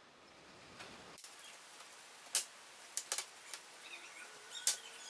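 Plastic screen bezel of a laptop being pried off its case with a pry tool: sharp little clicks as its clips let go, a handful spread over the last three seconds, in sped-up footage.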